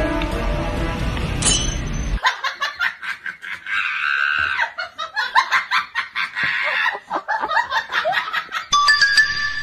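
Background music that cuts off about two seconds in, followed by a person laughing in quick, broken peals.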